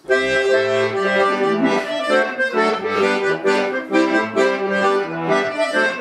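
Accordion playing an instrumental chastushka tune: steady reedy chords over a bass line, changing in a regular dance rhythm. It comes in abruptly at the start.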